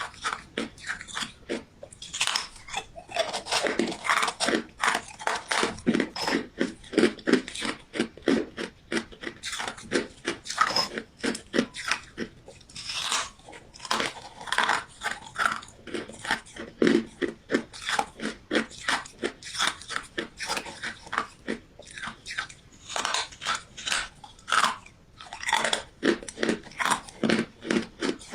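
Close-miked chewing and crunching of ice, with rapid irregular crunches several times a second.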